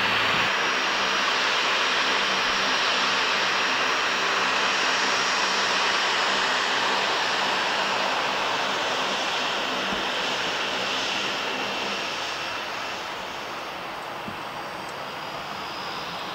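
Boeing 737-800's CFM56 jet engines at taxi power: a steady rushing hiss with a faint high whine, easing off over the last few seconds as the jet moves away along the taxiway.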